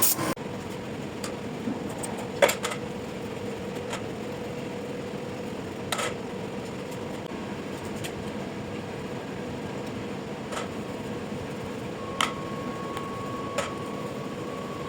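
A louder machine cuts off just after the start, leaving a steady electric-motor hum with a constant tone and a few sharp metallic clicks and knocks. A second, higher tone joins the hum near the end.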